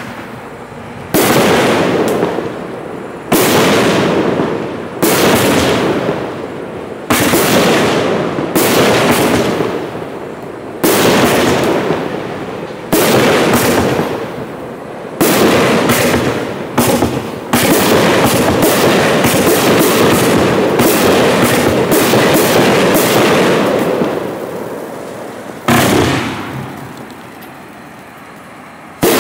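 Black Cat Caribbean Palms 20-shot 500-gram consumer firework cake firing, a shot about every two seconds, each a sharp bang trailing off into a fading hiss. About 17 seconds in, several shots follow quickly and merge into one long loud rush that fades out, and a last shot goes off near the end.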